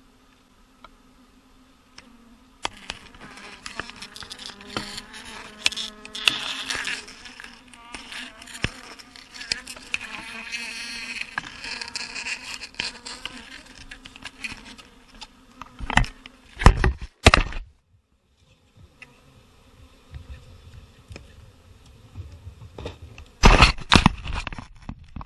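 A swarm of bees buzzing, a dense humming drone that comes in a couple of seconds in and is fullest in the middle. Loud rumbling bursts on the microphone break in twice, once past halfway and again near the end.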